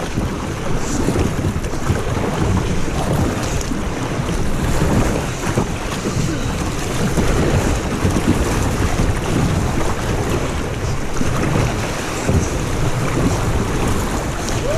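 River rapids rushing and splashing against a kayak's hull as it is paddled through choppy water, with wind buffeting the microphone.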